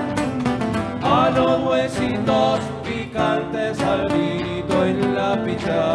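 Live Cuyo folk song from Argentina: a man singing into the microphone, with nylon-string guitars strumming a steady rhythm.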